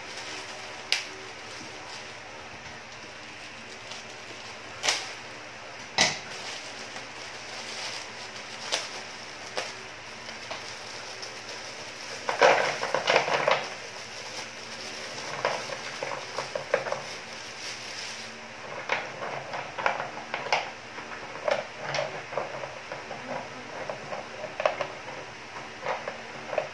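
Ceramic bio-filter rings (pore rings) clinking against each other and the plastic filter tray as they are tipped from a plastic bag into an overhead filter compartment. There are a few single sharp clicks, a dense burst of clatter about twelve seconds in as a batch pours in, then many lighter clicks as the rings are settled by hand.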